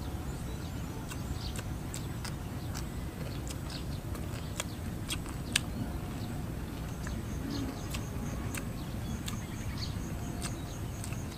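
Outdoor rural ambience: small birds chirping over a steady low rumble, with a high call repeated about three times a second in the second half and scattered sharp ticks.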